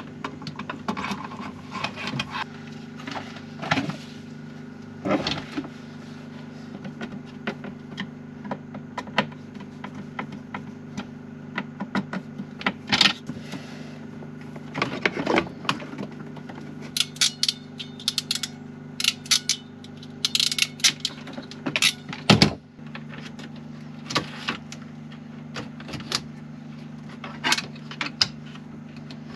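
Clicks, clinks and rattles of electrical wiring work: cables, connectors and small metal parts being handled and set down, irregular and sharp. Underneath, a generator runs with a steady low hum.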